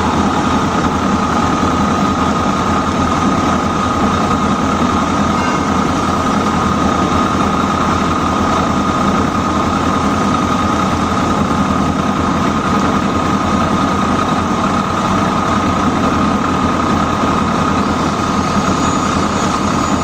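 A metal-cutting machine running steadily: a constant whine over a continuous mechanical noise.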